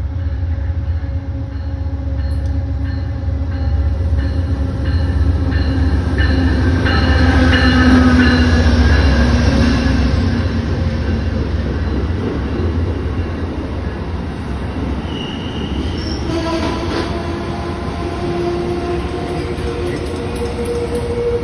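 Amtrak passenger train arriving at a station: a steady low rumble from the diesel locomotive and rolling stock, with wheels squealing in high-pitched tones as the stainless-steel passenger cars roll slowly past. The squeal comes about a third of the way in and again over the last few seconds.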